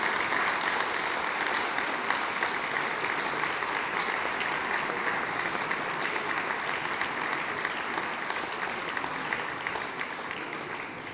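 Audience applauding in a large cave after a choir song, a steady patter of many hands that starts to die down near the end.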